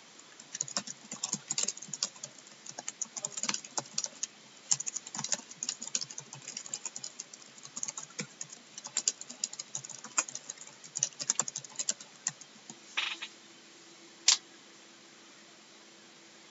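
Typing on a computer keyboard: quick, irregular runs of keystrokes that stop about three-quarters of the way through. A faint steady hum then comes in, and there is one sharp click near the end.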